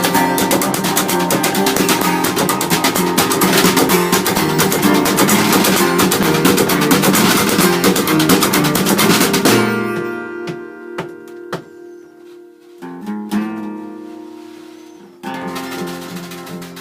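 Acoustic guitar strummed briskly in a folk-blues tune. About halfway through the fast strumming stops and a few separate chords and notes are left ringing, as the song winds down to its end.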